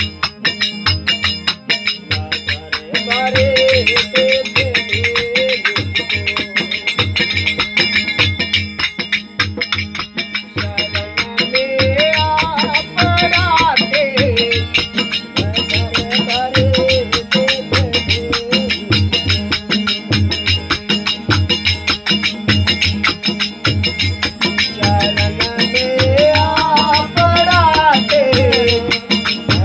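Instrumental interlude of a Rajasthani folk bhajan: a harmonium melody that rises and falls in phrases over a tandura drone, with a steady rattling percussion beat throughout.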